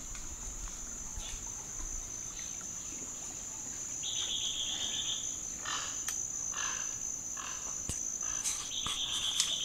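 A chorus of insects and frogs: a steady high-pitched insect drone throughout, with a buzzing trill about a second long that comes twice and a run of about five short calls in the middle.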